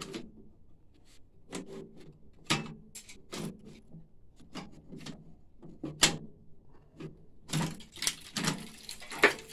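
Plastic clicks and knocks as a printer's paper roll unit is handled and worked loose. Near the end there is a longer scraping and rustling as it slides out, ending in a sharp knock.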